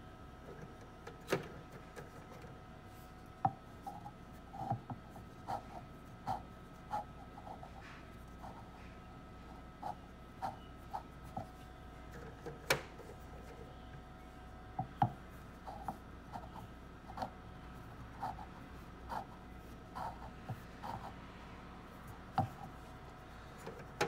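Light taps, knocks and rubbing as hatching eggs are handled against a candling light, scattered every half second to a second. Under them runs a steady hum from the egg incubator.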